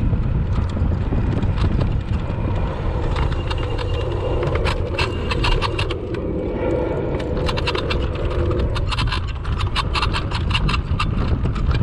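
Kugoo Max Speed Pro electric scooter riding over rough ground: a steady rumble, with the frame clattering and rattling over bumps, most densely in the second half. A hum runs for a few seconds in the middle.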